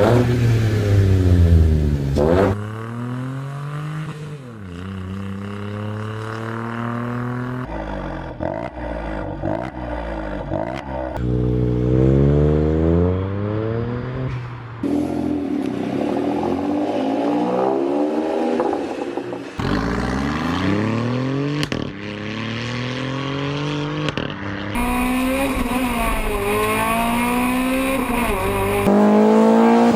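Car engines being revved in a series of short clips that change every few seconds, each engine's pitch climbing and dropping with the throttle.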